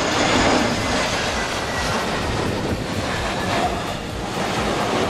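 Jet airliner landing: a steady rumbling rush of engine and air noise.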